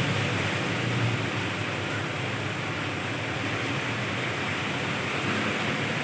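Steady hiss of rain, with the low rumble of traffic on a wet main road.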